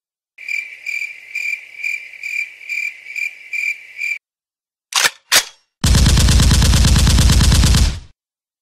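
Sound effects in a dance soundtrack. First a rhythmic high chirping like crickets, pulsing about two and a half times a second. Then two sharp shots and a loud burst of rapid machine-gun fire lasting about two seconds, which cuts off suddenly.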